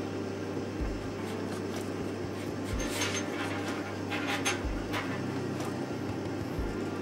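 Light clicks and taps of small plastic and metal parts being handled as wire, a lamp socket and flexible metal conduit are fitted together, bunched between about three and five seconds in. Under them runs a steady low hum with a soft low thump about every two seconds.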